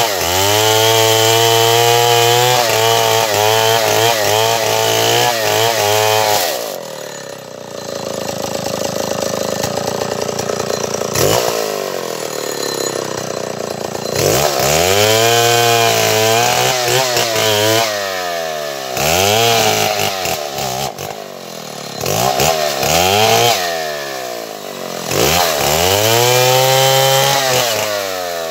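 Stihl 070 two-stroke chainsaw held at high revs for about six seconds, then dropping to a low idle. From about halfway on it is revved up and let fall back again and again, every second or two.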